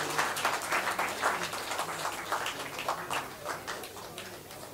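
A small audience applauding, the clapping gradually dying down.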